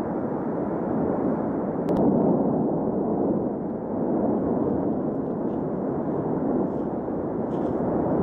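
Lava fountain erupting: a steady, deep rushing noise of the jetting lava and gas, with a single faint click about two seconds in.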